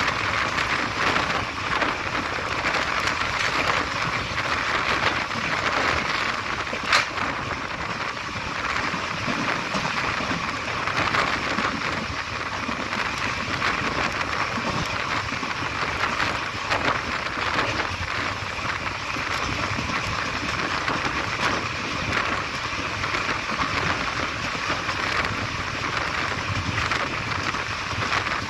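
Passenger train running along the track, heard from an open coach doorway: a steady rushing noise of wheels on the rails and air streaming past. One sharp click stands out about seven seconds in.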